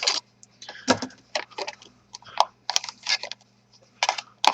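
Irregular light clicks and crackles from hands handling small plastic and metal laptop parts, over a faint steady low hum.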